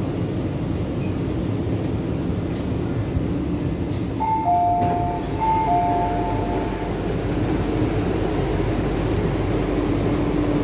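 Inside a Hong Kong MTR Q-Train car: a steady train rumble, with a two-note chime sounding twice about four seconds in as the doors open at the station.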